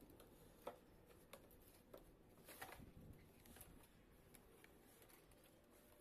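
Faint scrapes and a few light clicks of cardboard as the inner packaging tray of a toy RC car is slid out of its box.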